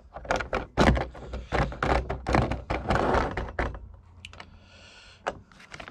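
Clicking and clattering of roof-box clamp hardware being handled and fitted together: bolts, steel plates and plastic-knobbed wing nuts knocking against each other. The clatter thins out after about three and a half seconds to a few light clicks.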